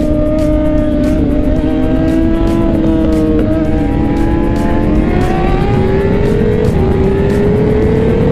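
Kawasaki ZX10R inline-four engine running under way at speed, its pitch climbing slowly with a few small steps, over heavy wind rush on the microphone.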